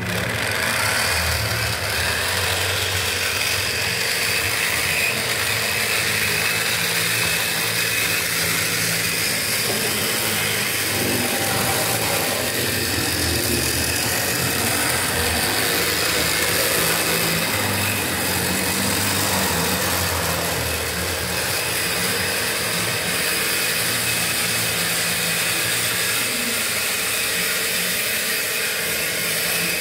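Model train running: the miniature BB 305 locomotive's electric motor and gears whir steadily as it pulls its wagons along the track, the low hum wavering slightly in pitch.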